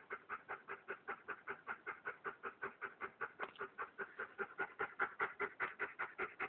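German Shepherd panting fast and steadily after running, about five breaths a second, each breath with a squeaky, train-like rhythm.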